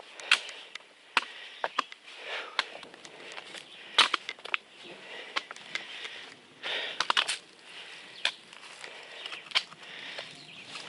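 A hiker's sniffing and breathing in several short bursts, with irregular sharp clicks and taps of gear and footsteps on a rocky trail.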